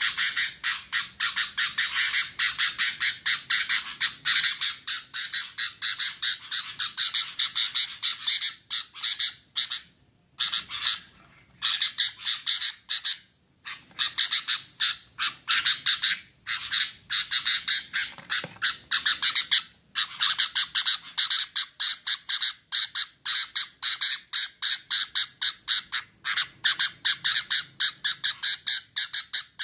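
Female sooty-headed bulbul (kutilang) calling in fast runs of short, repeated notes, several a second, with brief pauses about ten and thirteen seconds in.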